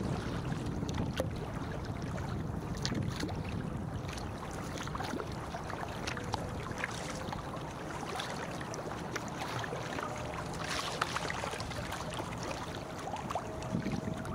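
Kayak moving on choppy river water: water lapping and splashing at the hull and paddle blades in irregular small splashes, over steady wind noise on the microphone.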